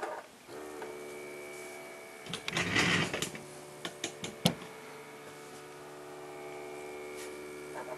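Stepper motor driven by an Allegro A4983 driver board, whining steadily with several tones at once as it turns and swings a bracket carrying a circuit board. A short rattling burst and a few clicks come about two and a half to three and a half seconds in, then another sharp click.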